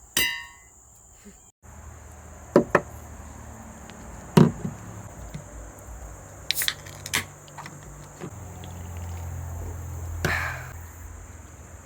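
Several sharp knocks and clunks at irregular intervals, loudest a little past a third of the way in, over a steady high drone of crickets. A low hum swells during the second half.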